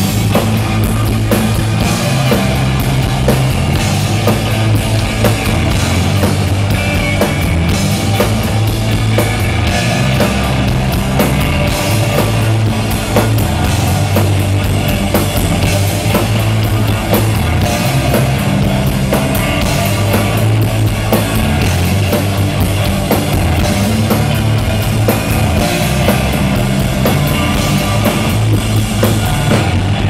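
Rock band playing live and loud: drum kit with steady cymbal and drum strikes over a heavy bass guitar line and electric guitar.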